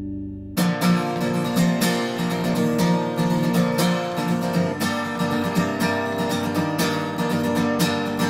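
Background music: a held sustained chord, then less than a second in, acoustic guitar strumming starts abruptly and carries on with a steady, rhythmic strum.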